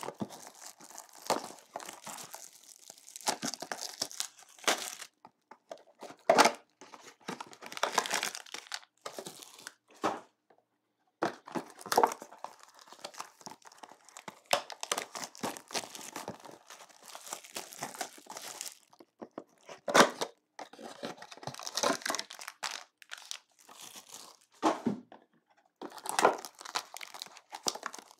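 Clear plastic shrink wrap on a sealed trading-card box crinkling and tearing as it is pulled off by hand, in irregular bursts with a short pause about ten seconds in.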